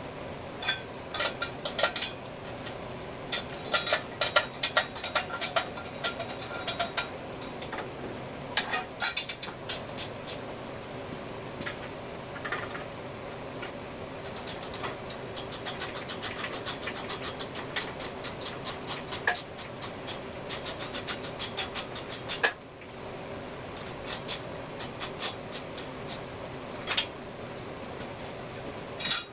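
Scattered metal clicks and knocks from tools being handled, then from about halfway in a fast, even run of ratchet clicks, about five a second, and another run near the end: leveling adjusters on the welding table being turned. A steady low hum runs underneath.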